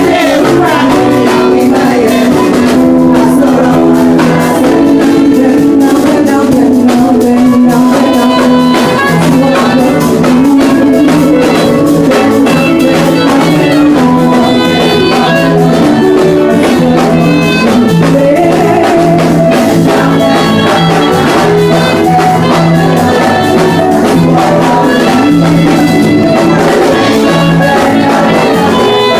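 Loud live church band music with instruments and a drum beat, and voices singing along.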